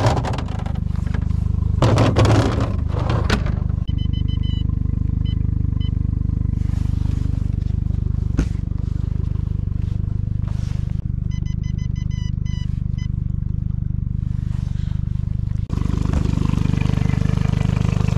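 Honda four-stroke outboard idling steadily, with a clatter of bottles and knocks in the first few seconds as a drawer fridge is opened and a drink taken out. Short runs of high tones come twice, and the engine grows louder near the end.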